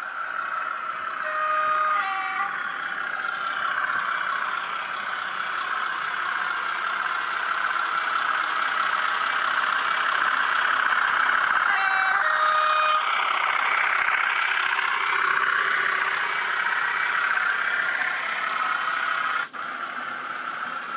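N gauge model steam locomotive running on the layout track with a steady whirring, rushing running noise, with two short tone-like sounds about 1.5 s and 12 s in. A sharp click comes near the end.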